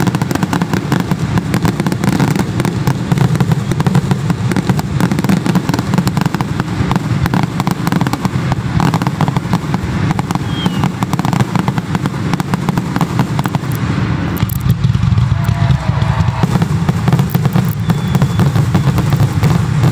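Aerial fireworks bursting overhead in a dense, continuous barrage of rapid crackling and popping.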